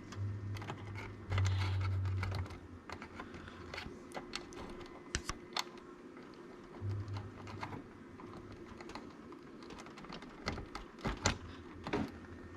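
Light irregular clicks and taps of hands fitting small plastic front-panel header connectors onto motherboard pins and handling cables inside a PC case, with short stretches of low buzz, the loudest lasting about a second from about a second and a half in.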